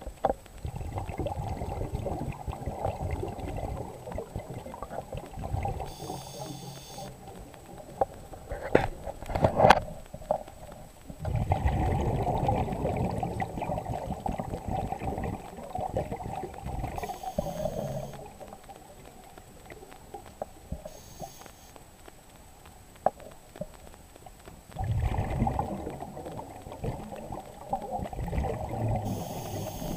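Underwater, a scuba diver's exhaled bubbles rumble and gurgle past the camera in long bursts, with short hisses of the regulator on each inhalation between them. There are a few sharp knocks near the ten-second mark.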